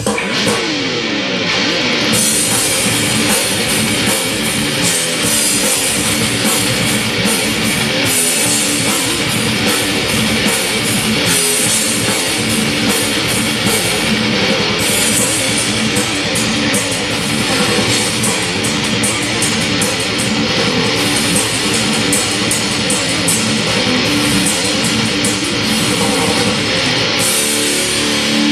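Heavy metal song: electric guitar playing riffs over a drum kit, with cymbals coming in and out.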